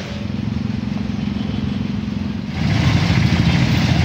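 Street traffic: a motor vehicle engine running steadily, then a louder engine and road noise from about two and a half seconds in.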